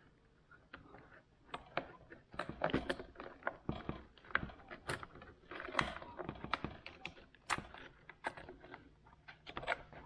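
Irregular small clicks and light metallic rattles of a slotted steel hose clamp being handled and worked onto the plastic pump housing of a dishwasher.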